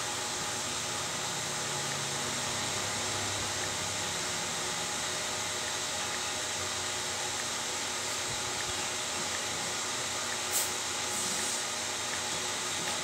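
Steady background hiss, even and unchanging, with one short click about ten and a half seconds in.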